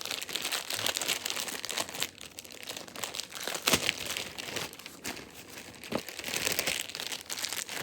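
Packaging crinkling and rustling as it is handled and rummaged through, with an irregular run of small crackles and a few louder crinkles.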